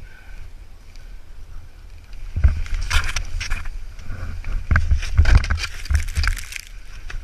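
Wind buffeting the microphone with a low rumble; from about two and a half seconds in, a snowboard's edge scraping over snow in a run of rough, uneven strokes, easing off about half a second before the end.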